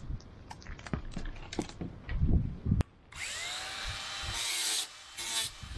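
Cordless jigsaw trimming the edge of a cured fiberglass panel: a few knocks and handling thumps, then the saw starts about three seconds in with a brief whine as it spins up and cuts, stopping and starting again in short bursts near the end.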